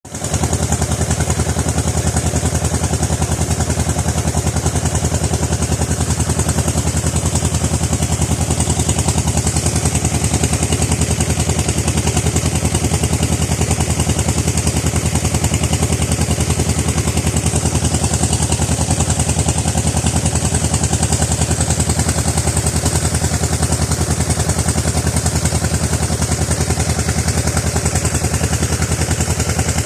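A small engine idling, a fast, even low throb that holds steady throughout, with a steady high hiss above it.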